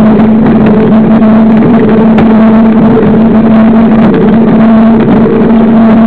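Knobby 29-inch mountain bike tyres humming on asphalt at speed, a steady droning tone that holds its pitch, under a loud rush of wind over the microphone.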